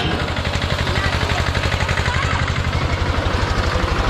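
Engine of a small Ferris wheel running steadily with a fast, even throb as the wheel turns.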